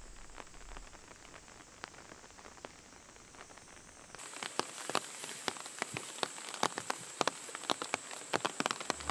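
Light rain, single raindrops dripping onto leaves and foliage over a soft steady hiss. About four seconds in the drops become much denser and louder.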